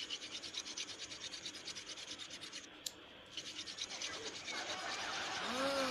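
Wooden hand-drill fire-making: a stick spun between the palms rubs and scrapes against a wooden board in a rapid, even rhythm of about eight strokes a second, pausing briefly about halfway through. A short swooping tone is heard near the end.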